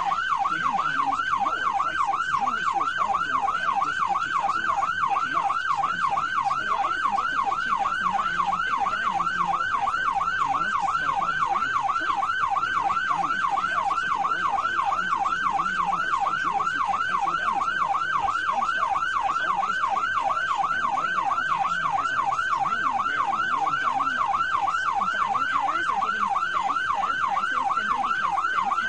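Police car siren in yelp mode, a fast rising-and-falling wail repeating several times a second, sounding without a break.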